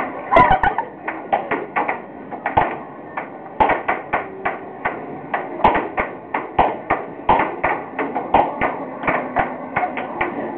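Air hockey puck on a Photon table being struck back and forth by plastic mallets: a fast, irregular string of sharp clacks, about three a second, as the puck hits the mallets and the rails, the loudest cluster about half a second in.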